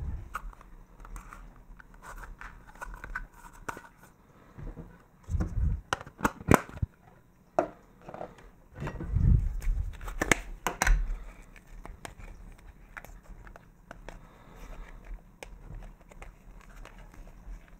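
Hands handling plastic Play-Doh tubs and modelling dough over a ceramic plate: scattered clicks and rustles, with a few dull thumps about five seconds in and again around nine to ten seconds.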